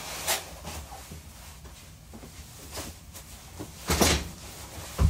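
Knocks and thumps of someone struggling to step into a tight waist trainer and nearly falling: a few light knocks, a heavier thump about four seconds in, and a sharp one at the end.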